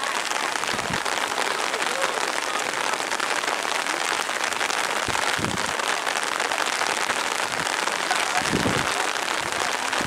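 Heavy rain falling steadily, a dense even hiss, with a few dull low thumps about a second in, midway and near the end.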